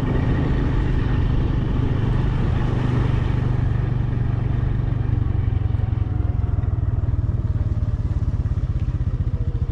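A vehicle's engine running steadily while travelling along a road, a continuous low rumble with a fast, even pulse.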